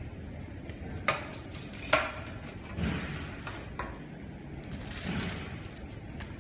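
Metal tool clinking down twice into a stainless steel tray, with a lighter knock a few seconds later. Soft crinkling of thin gold stamping foil being peeled off leather follows.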